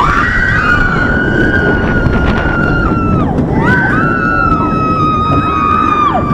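Several riders screaming in long held screams, overlapping, over the steady rumble and rush of a steel roller coaster train running along its track.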